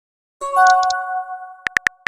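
Electronic message-notification chime: a bright ding of several tones that rings for about a second and fades. It is followed near the end by four quick sharp clicks.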